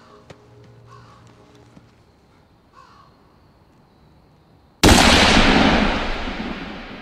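A crow caws faintly a couple of times, then a single loud gunshot goes off about five seconds in and its echo dies away slowly over the following seconds.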